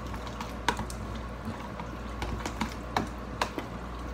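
Spoon stirring guacamole in a glass bowl, clinking irregularly against the glass, with the two loudest knocks about two-thirds of a second in and near the end.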